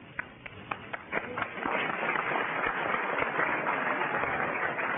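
Audience applauding: a few scattered claps at first, then full applause swelling in about a second and a half in.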